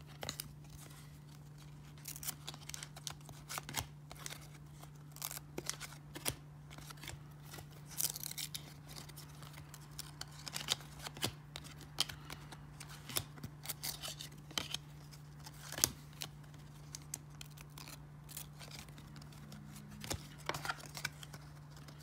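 1994 Topps baseball cards being flipped through by hand, each card slid off the stack and tucked behind: a run of faint, irregular flicks and scrapes of card stock. A steady low hum sits underneath.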